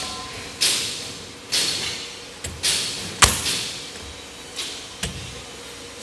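Sharp knocks repeating irregularly about once a second, each with a short ringing tail, two of them close together about two and a half seconds in.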